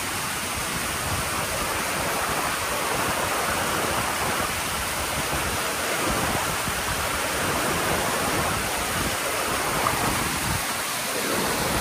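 Steady rush of churning river water around a boat, with no pitched engine tone.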